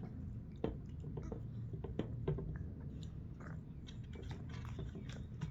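A person chewing and biting food close to the microphone, with irregular sharp mouth clicks.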